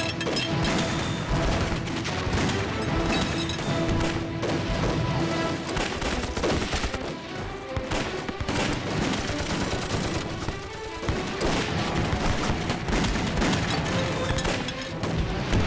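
Battle gunfire: many shots crackling in quick, overlapping volleys, over a background music score.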